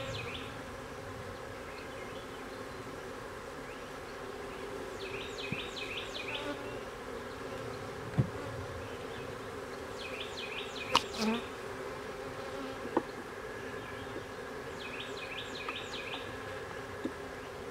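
Honeybees buzzing steadily as frames from a nuc box are moved into a hive. A few sharp knocks come from the wooden frames and boxes, the loudest about two-thirds of the way through. A short burst of high chirps recurs about every five seconds.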